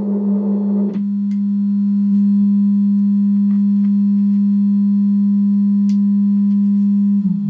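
Low, steady electronic tone with faint overtones, from a small knobbed tone-generator box. It warbles for about the first second, then settles into one unwavering pitch with a few faint clicks. Near the end the pitch drops and wavers.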